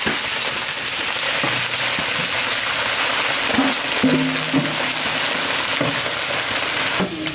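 Small river shrimp frying in hot oil in a wide steel pan: a steady, loud crackling sizzle, stirred with a long ladle.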